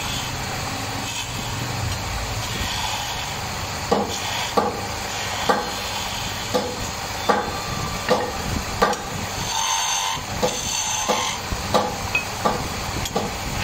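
Wood lathe running steadily while a hand chisel cuts a small hardwood spindle, the tool scraping on the spinning wood. From about four seconds in, sharp clicks come roughly every half-second to second.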